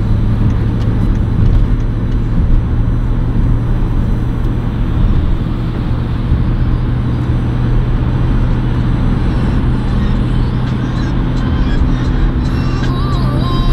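Car cabin at highway speed, about 60 mph: steady road and tyre roar under a constant low engine drone. Music comes in near the end.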